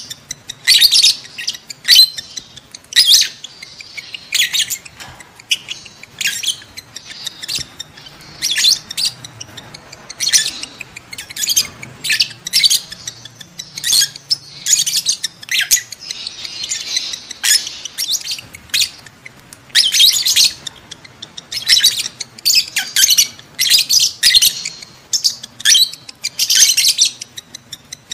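Lovebirds in breeding condition calling: a rapid, irregular string of short, shrill chirps and squawks, several a second, coming in bunches.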